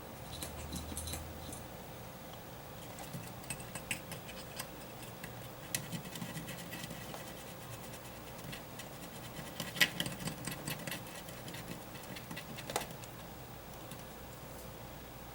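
Scattered light clicks and scratches from small parts and tools being handled on a workbench, with one sharper click about ten seconds in.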